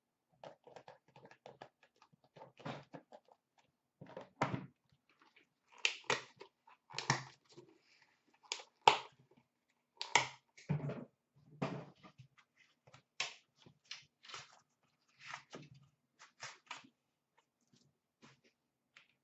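Hands unpacking and handling a sports card box and its packaging: irregular scrapes, taps, clicks and rustles, busiest and loudest in the middle stretch.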